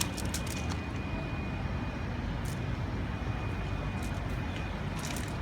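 Steady low background rumble with a faint, steady high tone and a few light clicks.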